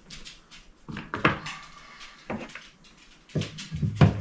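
Household handling sounds: a few knocks and clunks as decorative items are moved and set down in a small decor cupboard, the loudest near the end.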